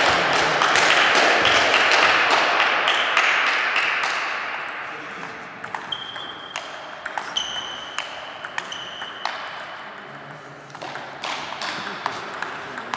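Table tennis rally: the ball clicks off bats and table at a quick, uneven pace, mixed with several high squeaks of sports shoes on the hall floor. For the first few seconds a loud noisy wash sits over it and fades away.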